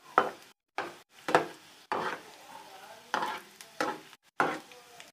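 Metal spatula scraping and knocking against a metal wok, about seven strokes, as garlic, curry leaves and whole dried red chillies are stirred in hot ghee for a tadka. A light sizzle of the frying runs underneath.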